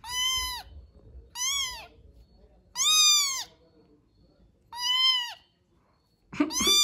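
Young kitten meowing five times in a row, each meow a short high-pitched call that rises and then falls.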